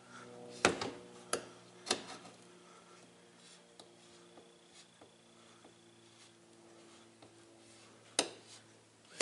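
Sharp knocks and slaps from the rear window glass being worked into its rubber weatherstrip: three close together about a second in and another near the end, with faint ticks between, over a steady low hum.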